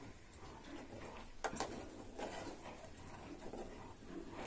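Steel spoon stirring milk in a stainless-steel pot, clicking twice against the pot about a second and a half in.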